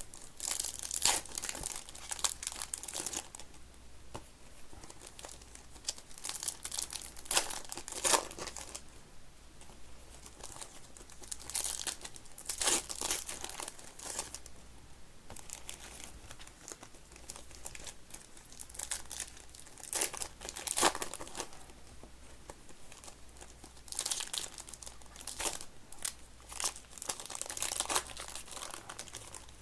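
Foil wrappers of 2025 Topps Stadium Club baseball card packs being torn open and crumpled, in irregular bursts of crinkling.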